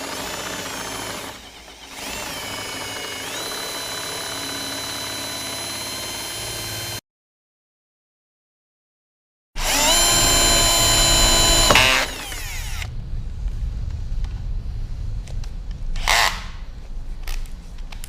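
Electric drill with a 10.2 mm bit running into rusted sheet metal of a sunroof bracket, its whine sagging under load and picking back up. After a short gap it runs again, louder, and winds down about twelve seconds in, followed by scattered metallic clicks and scrapes.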